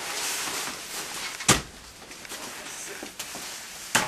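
Two sharp bangs, one about a second and a half in and a second, a little quieter, near the end, each with a short echo, over a rustling hiss.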